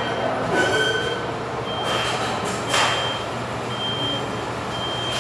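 An electronic beeper sounding a short, high, steady beep about once a second, over a low steady hum. A brief louder noise comes a little past halfway.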